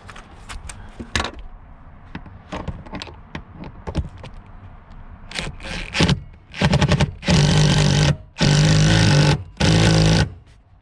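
Light clicks and scrapes of parts being handled, then from about six seconds in a power impact wrench runs in five loud bursts, driving in the seat belt anchor bolts.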